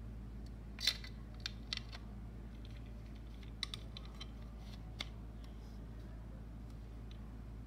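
Light, sharp clicks and taps of a dome security camera's trim ring and housing being handled and pressed together, about seven of them in the first five seconds, over a steady low hum.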